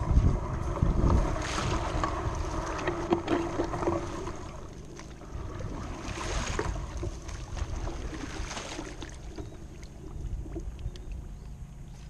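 Wind buffeting the microphone on a kayak, gusting hardest in the first few seconds and then easing, with water splashing now and then against the hull.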